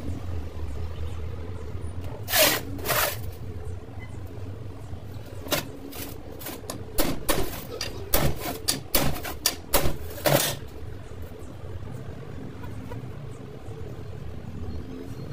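Hammer blows on metal driving a new wheel bearing into a steering knuckle: about a dozen separate strikes, coming quicker in a run through the middle.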